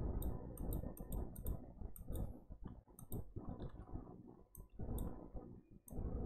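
Irregular sharp clicks from a computer pointing device as pen strokes are drawn on screen, over a low rumble.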